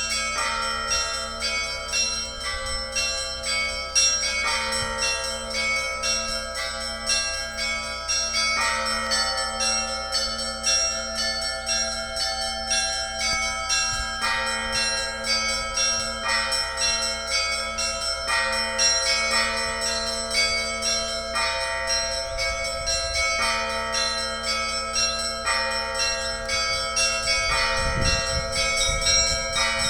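Russian Orthodox church bell ringing (zvon): several small bells of different pitches struck in a quick, shifting rhythmic pattern over a lower bell sounding at a steady beat. A low rumble comes in near the end.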